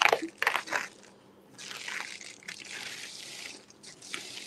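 Crinkling and rustling of the clear plastic sleeve around a rolled diamond-painting canvas as it is handled and slid out. There are a few short crackles in the first second and a longer steady rustle from about one and a half seconds in to near the end.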